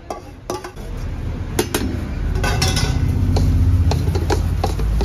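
Rice being spread by gloved hands on a large steel serving platter: scattered metallic clinks and taps with a stretch of scraping, over a low rumble that builds from about a second in.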